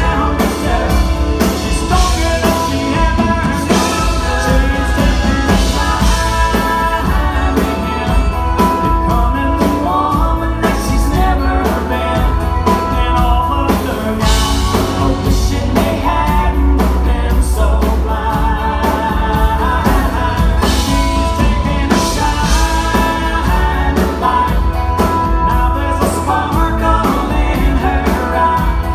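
Live country song: a man singing into a microphone while strumming an acoustic guitar, backed by a band with bass and drums.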